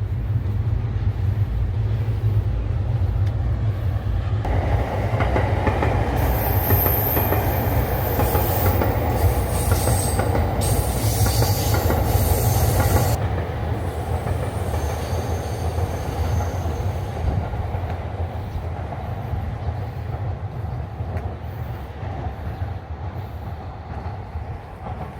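A Yamanote Line electric train passing close by at the level crossing. A low rumble runs throughout, the wheel noise grows louder with high squealing from about 6 to 13 seconds in, and then it fades away gradually toward the end.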